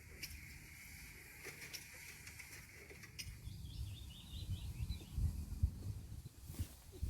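A small bird gives a short twittering phrase about three and a half seconds in, over a low rumble of wind or handling on the microphone. A steady high tone stops about three seconds in.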